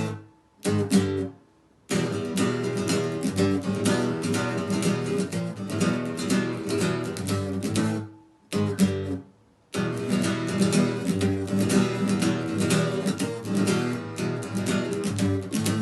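Instrumental guitar cover of a punk-rock song, guitar strumming the chords without vocals or solo. Twice the music stops short: each time one brief hit sounds, then about a second of silence before the playing comes back in.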